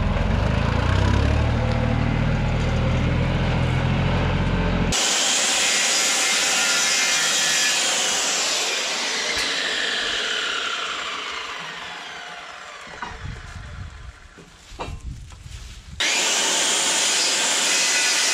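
Power saws cutting wood, in three short clips: first a cut over a low, steady engine note; then a saw blade whining down in pitch for several seconds as it spins down; then another cut with a steady hiss.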